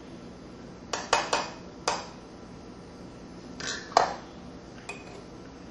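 Small metal reloading gear handled on the bench, with brass cartridge cases and a powder funnel clinking. About six short clinks and taps, the loudest about four seconds in, and a brief ring just before the end.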